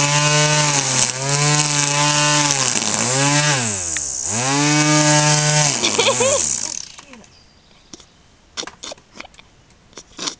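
Gas string trimmer's small two-stroke engine running at high revs, its speed sagging as the throttle trigger is let off and squeezed again, with one deep drop to near idle about four seconds in. About six seconds in it runs down and stops, leaving a few faint clicks.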